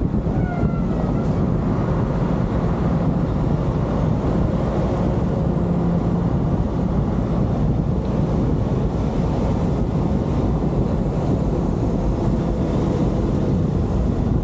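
Steady road noise of a car driving, a low rumble with wind on the microphone.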